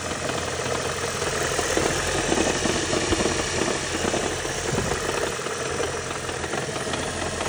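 Lexus CT200h's 2ZR-FXE four-cylinder petrol engine running steadily with a knock, which the owner takes for a failing head gasket letting coolant into the cylinders and causing a misfire.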